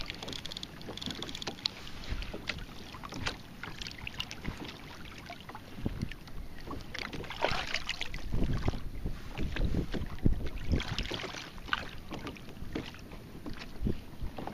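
Water splashing and lapping at the side of a kayak, with gusts of wind on the microphone and scattered small knocks and clicks.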